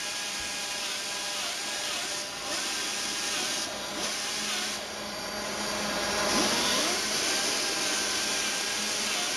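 Air-powered right-angle die grinder running with a small sanding disc on bronze: a steady high hiss and whine whose pitch dips briefly every second or so as the disc is pressed onto the metal, getting louder around six seconds in.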